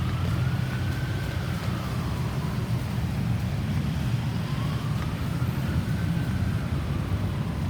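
An ambulance siren in a slow wail, rising and falling twice, fainter than a steady low rumble of road traffic.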